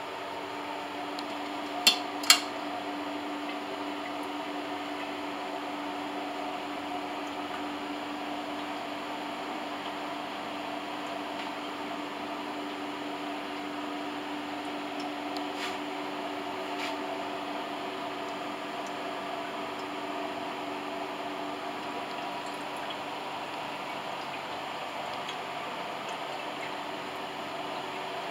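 Vintage 1970s rain lamp running: a steady hum from its base with liquid trickling down the strands into the basin. Two sharp clicks about two seconds in.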